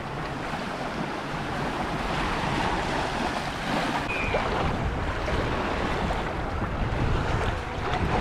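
Gulf surf washing in the shallows, a steady rush of water, with wind buffeting the microphone as a low rumble.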